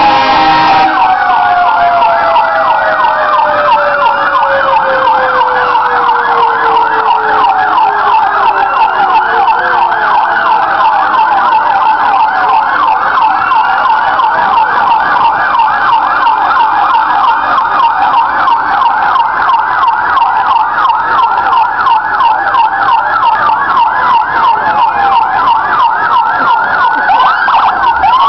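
Several fire-truck sirens sounding at once: electronic sirens on a rapid yelp throughout, overlaid by a siren's long wail falling slowly in pitch over the first ten seconds and another winding up in pitch near the end.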